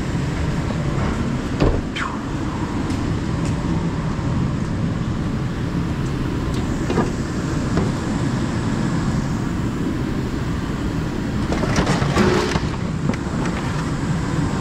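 Steady low engine rumble of an idling vehicle, with a few knocks and a louder clatter about twelve seconds in as scrap is handled out of the truck.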